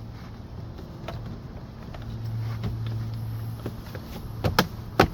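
Plastic dash trim panel being pressed into the dashboard, a few light ticks and then two sharp snaps near the end as its retaining clips lock into place. A low steady hum runs underneath.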